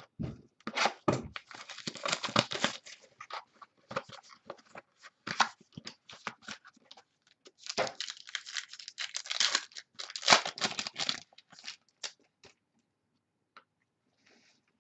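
Trading card packaging being torn open and crinkled by hand: a long run of short, scratchy rips and rustles that dies away near the end.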